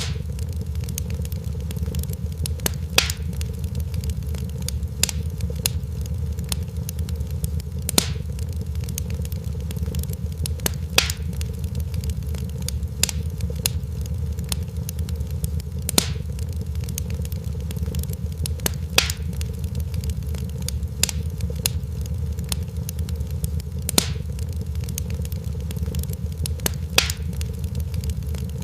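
Crackling fire: a steady low rumble of burning, with sharp pops every two to three seconds.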